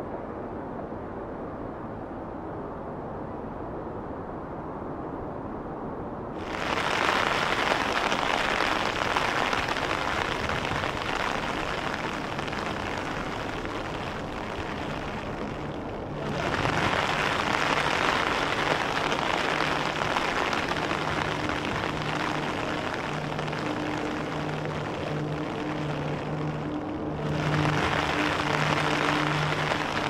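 Steady hiss of heavy rain that cuts in abruptly about six seconds in, over a low rumble, with further sudden jumps near the middle and again near the end. From about halfway, low sustained musical notes pulse underneath.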